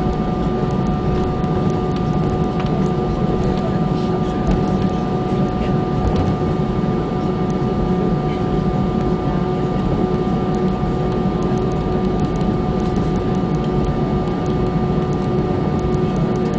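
Airbus A320 jet engines running steadily, heard from inside the passenger cabin: a constant rumble with steady whining tones on top.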